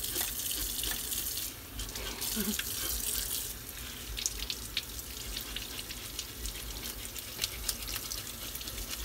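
Kitchen faucet running steadily into a sink while a knife scrapes the scales off a striped bass held in the stream, giving many short scraping clicks in the second half.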